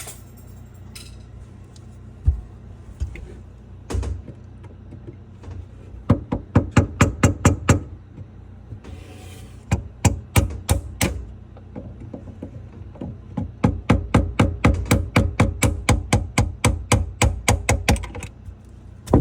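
Sharp knocks on the old sink drain piping as it is knocked loose: a few single blows, then fast runs of about five or six knocks a second, with a short hiss between the runs.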